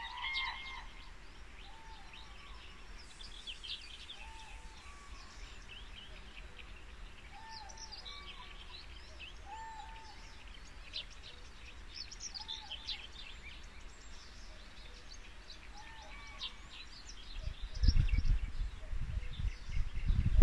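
Outdoor ambience of songbirds chirping and twittering, with one bird repeating a short arched call every second or two. Near the end a loud low rumble sets in.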